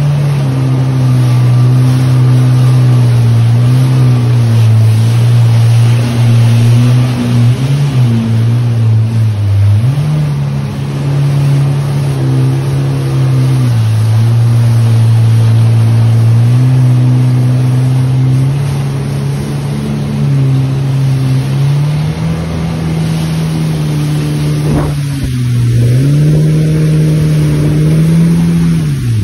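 Jet ski engine running at speed, its pitch rising and falling several times as the throttle changes, over the rush of water.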